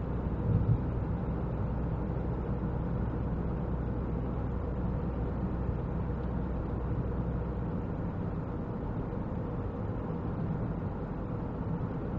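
Steady low rumble of an idling car engine, with a faint steady hum above it and a brief louder bump about half a second in. The deepest part of the rumble drops away about eight seconds in.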